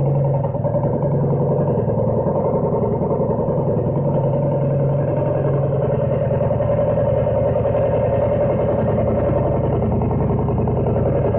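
Honda Super Tact 50cc two-stroke scooter engine running steadily through an aftermarket SEASTYLE expansion chamber with silencer fitted.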